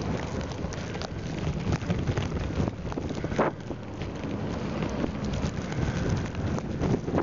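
A mountain bike ridden through deep snow in a snowstorm: wind rushing over the microphone, with a dense crackle from the tyres in the snow and one sharper hiss about three and a half seconds in.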